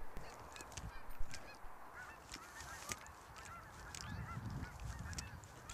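A flock of Canada geese honking, many short calls overlapping, with scattered clicks.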